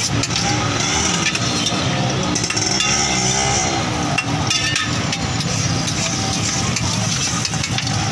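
Metal spatula scraping and clanking on a hot flat steel griddle, many short sharp knocks, with water splashed onto the hot plate hissing.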